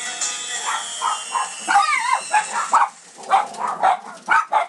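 A small dog yapping in a rapid run of short, high yips, about three or four a second, with a whimpering yelp about two seconds in. Music fades out under it about three seconds in.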